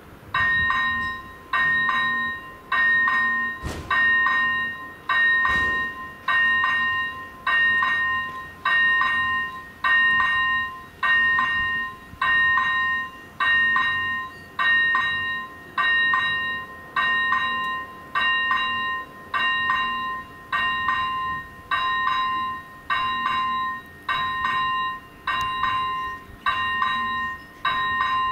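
Level crossing warning bell ringing steadily, about one bright ding a second, starting up as the crossing is activated for an approaching train. A couple of faint knocks a few seconds in.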